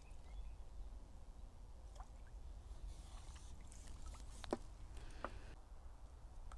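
Faint water sloshing as a tench is let go from a landing net into a lake's margin, with a few small plinks of dripping water about two, four and a half and five seconds in, over a steady low rumble.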